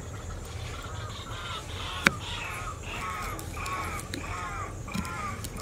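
A bird calling again and again, about two calls a second, with sharp knife taps on a wooden chopping block; the loudest tap comes about two seconds in.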